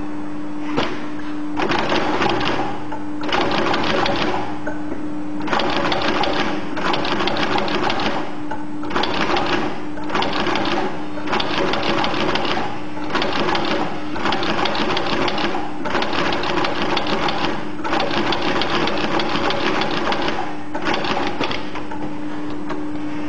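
Moccasin lockstitch sewing machine (xs0012) stitching a moccasin upper in runs of a second or two with short pauses between, the needle rattling fast while it sews. In the pauses a steady motor hum remains.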